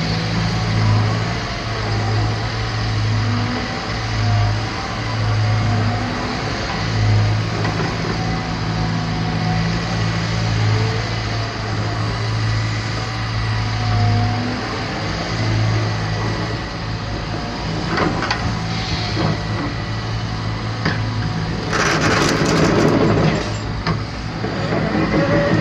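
Diesel engine of a Cat 320 excavator running steadily, its low hum swelling and easing. About 22 seconds in, a louder burst of metallic clatter.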